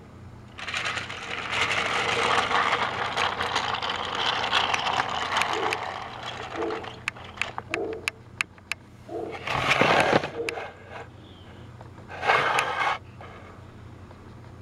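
Battery-powered Trackmaster toy train running on plastic track, its small geared motor whirring and rattling for about six seconds, then a string of sharp plastic clicks and two short, louder noisy bursts about ten and twelve seconds in.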